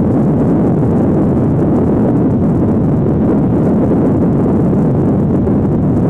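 Wind buffeting the microphone: a steady, loud low rumble with no breaks.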